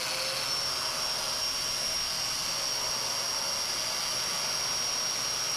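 Festool Domino joiner running with a steady high-pitched whine over the rush of its dust extraction, cutting slots for floating tenons in oak.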